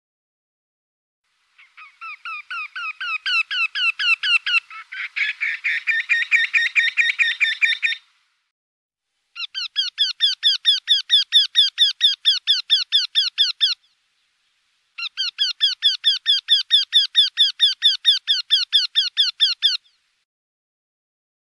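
Eurasian wryneck (Jynx torquilla) singing its repeated run of rapid, nasal, rising notes, about four phrases with short pauses between them. The first phrase grows louder, then runs into a denser stretch where calls overlap.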